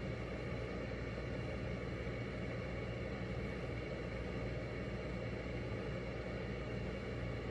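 Steady low hum and hiss of room background noise, with no distinct events.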